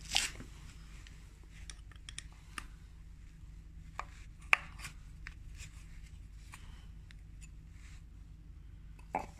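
Scattered small clicks and scrapes of a small screwdriver working the old rubber O-ring off a plastic oil filter housing cap, with one sharper click about four and a half seconds in, over a low steady hum.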